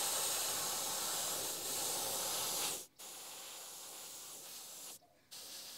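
Gravity-feed airbrush spraying paint, a steady hiss of air. It stops sharply about three seconds in, then comes back quieter, with another brief stop near the end.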